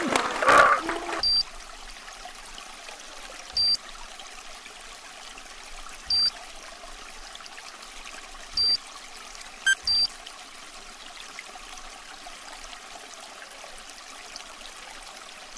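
Shallow stream water trickling steadily, with short, high electronic beeps repeating about every two and a half seconds. A man's strained voice is heard in the first second.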